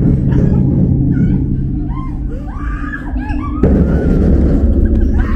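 Horror-maze soundscape: a loud, low rumbling drone with high wailing screams rising and falling over it. About three and a half seconds in, a sudden loud rush of hissing noise comes in and holds.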